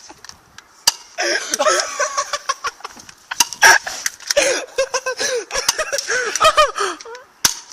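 People laughing hard in breathy, high-pitched bursts, with a few sharp snaps of a BB gun firing in between.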